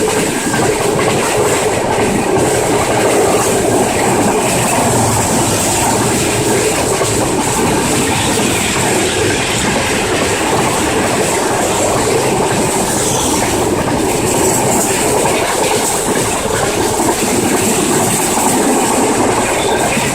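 Train hauled by a Pakistan Railways GEU-40 diesel-electric locomotive running on the track: a steady, loud rolling noise that holds without a break.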